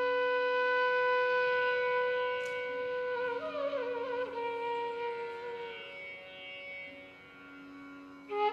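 Indian classical accompaniment music: a wind instrument holds one long note, slides through an ornamented turn about three and a half seconds in, then fades away over a low steady drone. A new phrase starts at the very end.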